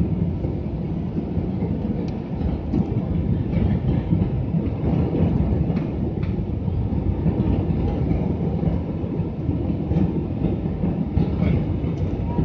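Steady low rumble of an Airbus A320-family airliner's jet engines and rushing air, heard inside the passenger cabin during the descent to land.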